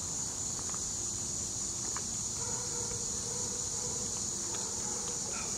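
Steady chorus of insects outdoors, a continuous high-pitched shrill drone that does not change.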